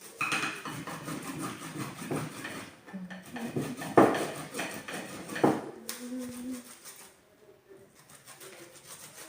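Fresh ginger root being grated on a hand grater: rasping strokes, with two sharp louder knocks about four and five and a half seconds in, after which the grating goes quieter.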